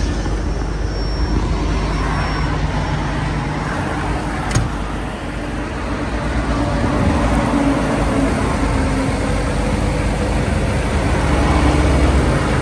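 Caterpillar 320D L hydraulic excavator's diesel engine running steadily under load, with a sharp click about four and a half seconds in and the engine growing louder in the second half.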